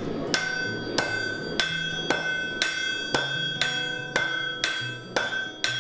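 Sledgehammer and hand hammer striking hot steel on an anvil, about two blows a second, each blow leaving the anvil ringing with a clear high tone.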